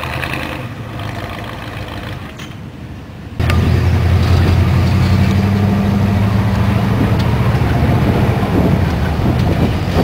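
Ford F-350 diesel mud truck's engine running, first at a moderate level, then suddenly much louder from about three and a half seconds in, a steady deep drone.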